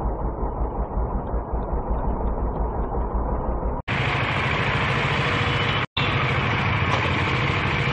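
Riding noise from a KTM Duke 200 in traffic: its single-cylinder engine running under a heavy rumble of wind on the camera microphone. The sound cuts out abruptly twice, about four and six seconds in, and comes back brighter after the first cut.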